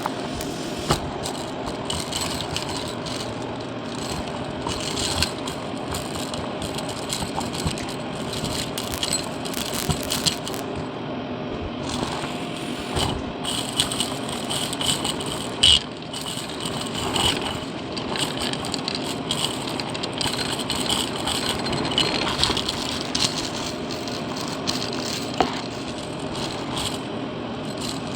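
Shark vacuum cleaner running steadily while sucking up gritty debris and coins, which rattle and clatter through the nozzle and wand. A sharper clack comes about halfway through.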